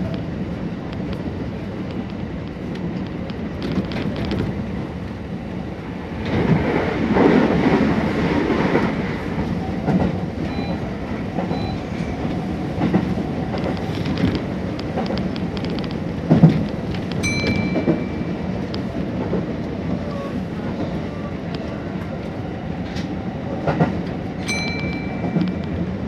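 Kintetsu electric train running, heard from just behind the driver's cab: a steady rumble of wheels on rail with scattered clicks over joints. It grows to a louder rush for a few seconds about six seconds in as an oncoming train passes on the next track. A sharp knock comes later, and two short high beeps about seven seconds apart near the end.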